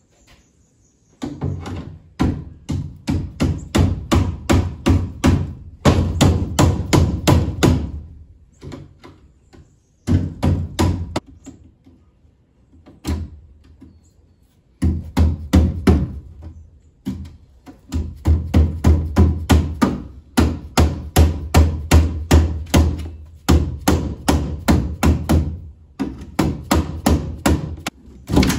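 Hammer blows in quick runs, about three a second, with short pauses between the runs: a hammer knocking open the metal clips on the edge of a plywood shipping crate.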